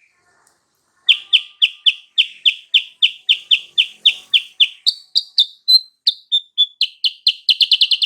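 Kutilang sutra (silver-eared mesia) singing: a run of sharp, evenly repeated chirping notes about four a second, breaking about halfway into a few higher, varied notes, then speeding up into a fast trill near the end. It is a lure song used to provoke a rival bird into answering.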